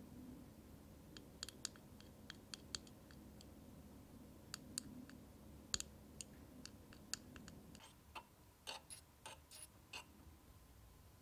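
Light, irregular clicks of a small wooden stirring stick tapping the inside of a tiny plastic cup as it mixes. After about eight seconds comes a closer run of clicks as a miniature metal saucepan with a wooden handle is handled.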